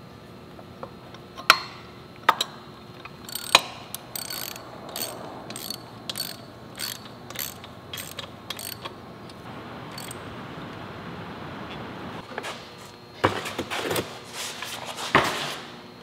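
Socket ratchet clicking as it turns a bolt on a pit bike's rear brake caliper during a brake pad change: a steady run of clicks, about two a second, through the middle, with a few sharper metal knocks near the end.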